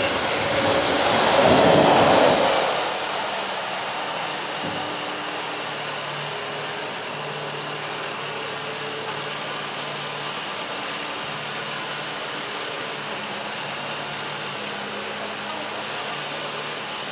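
A narrowboat's diesel engine running steadily at low revs, with a low, even hum. A louder rushing noise covers it for the first two or three seconds and then dies away.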